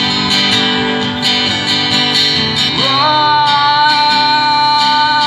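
Acoustic guitar strummed and amplified through a loudspeaker, playing a pop ballad. A long, steady held note joins about three seconds in.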